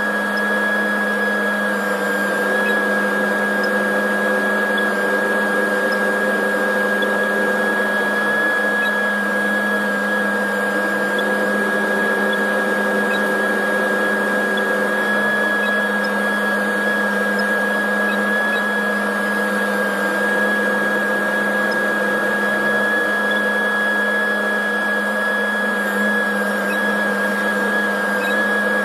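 Steady drone of a John Deere tractor heard from inside its cab: a low engine hum with a constant high whine over it, unchanging throughout.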